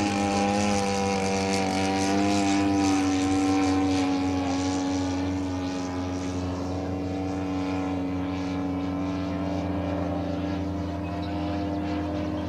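Engine of a radio-controlled Topflite F4U Corsair model running steadily in flight. Its buzzing propeller note drops slightly in pitch and fades a little as the plane passes and draws away.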